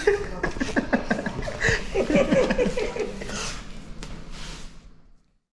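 A few people talking over one another with some chuckling, no words clear, fading out to silence about five seconds in.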